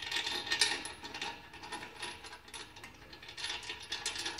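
Light, irregular metallic clinks and rattles of a steel washer and half-inch Nylock nut being handled and fitted onto a bolt against a steel bracket, with the clicks coming thicker near the end.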